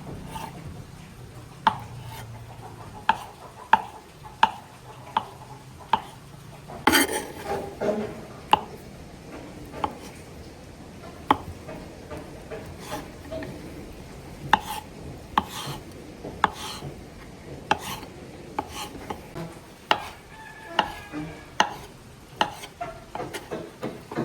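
Kitchen utensils knocking and scraping: sharp, irregular knocks about once a second, with a quick cluster of them about seven seconds in.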